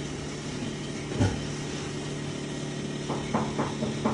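A steady low mechanical hum, like a small motor running, with a single knock about a second in.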